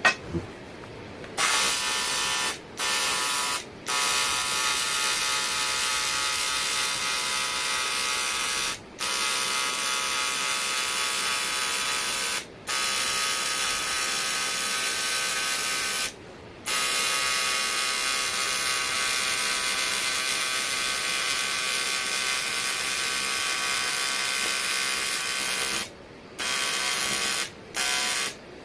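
Welding arc on aluminium, a steady buzzing hiss that starts about a second in and cuts out briefly about seven times as the arc is broken and struck again.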